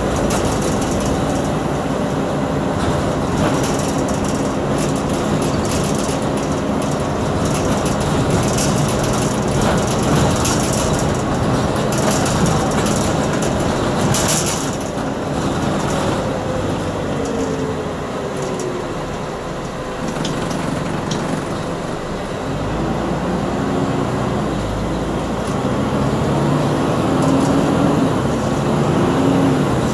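Scania East Lancs OmniDekka double-decker bus on the move, heard from inside: a steady din of diesel engine and road noise with scattered rattles. The engine note falls away about halfway through and rises again later on.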